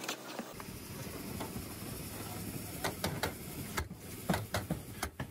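A hand tool clicking and snapping against metal drip edge at a roof eave. The sharp clicks are irregular, sparse at first and coming in quick succession over the last two seconds.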